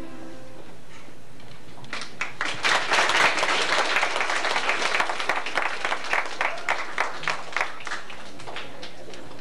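A grand piano chord fades out, then audience applause starts about two seconds in. It swells, thins to a few scattered claps and dies out near the end.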